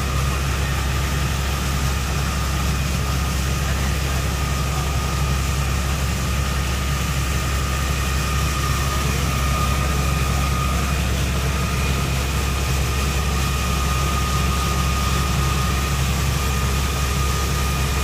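Heavy engine running at a steady drone with a steady high whine over it, driving the compressed air that forces water up a new tubewell, mixed with the rush of the high-pressure jet of muddy water gushing from the bore pipe.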